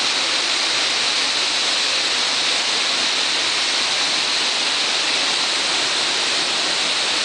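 Waterfall: a steady, unbroken rush of falling water, bright and hissy, with little low rumble.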